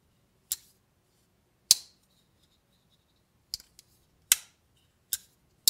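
Jack Wolf Knives Vampire Jack slipjoint's blade snapping open and shut against its backspring. About six sharp metallic clicks, the two loudest about a quarter and three quarters of the way through. This is the knife's walk and talk, clearly audible on this one.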